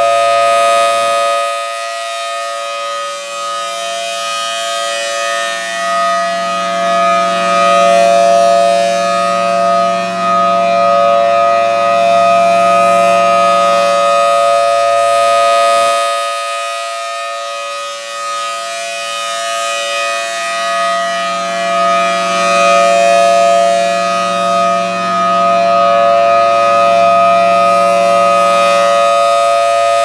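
Federal Signal Thunderbolt 1000T supercharged rotating outdoor warning siren sounding its steady alert tone during a test. It holds one steady pitch, loud throughout, swelling and fading about every 15 seconds as the rotating horn sweeps past.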